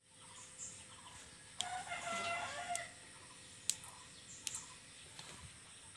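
A rooster crowing once, about a second and a half in, with a few sharp clicks of small turkey berries being picked and dropped into a steel bowl.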